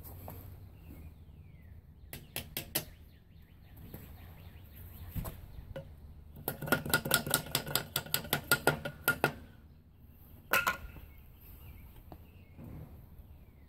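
A wooden block held against a pedal tractor's wheel hub is struck to drive a new hubcap onto the axle end. A short burst of about four taps is followed by a fast run of about eighteen hard knocks over some three seconds, then a single last knock.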